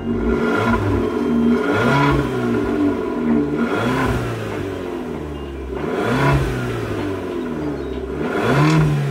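Abarth 500 Esseesse's turbocharged 1.4-litre four-cylinder engine revved through its exhaust in short throttle blips about every two seconds, each rising and falling back toward idle.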